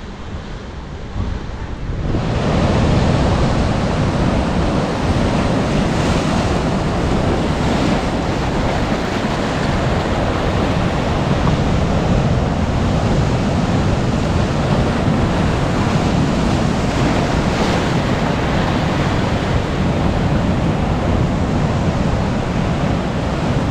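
Ocean surf washing in steadily, with wind buffeting the microphone; the sound swells up about two seconds in and then holds loud and even.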